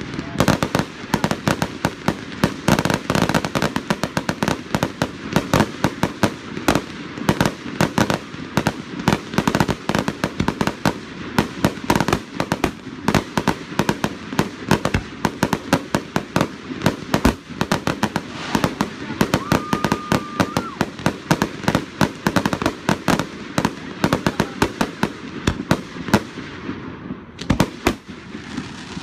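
Fireworks display in a dense barrage: many shells bursting in rapid succession, a near-continuous stream of cracks and bangs. The bursts thin out near the end.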